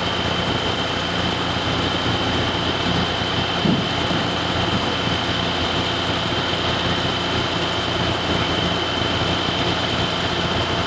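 Heavy-duty diesel tow truck engines running steadily, with a steady high whine over the rumble and a short knock a little under four seconds in.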